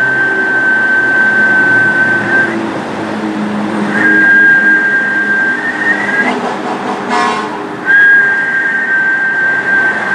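A high, steady whistle-like tone, held for about two seconds three times with short gaps, each hold ending in a slight upward slide, over a lower hum; a brief buzzy sound comes between the second and third holds.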